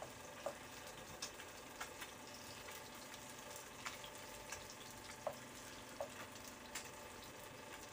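Chopped ginger sizzling faintly in hot oil in a frying pan with pieces of fried fish, stirred with a wooden spatula. A steady low sizzle with scattered small clicks throughout.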